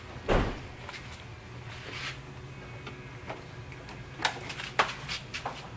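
A few scattered sharp clicks and knocks, the loudest just after the start and a couple more about four to five seconds in, over a faint steady low hum.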